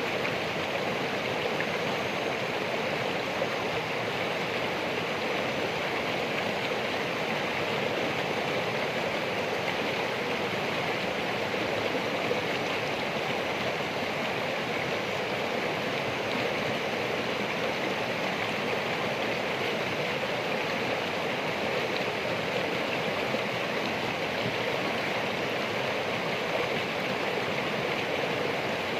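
Running water flowing steadily, an even rushing with no change in level.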